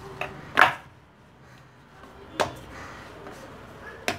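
Wooden rolling pin rolling dough out on a round wooden board, with a quiet rubbing and a few sharp wooden knocks as the pin strikes the board, the loudest about half a second in.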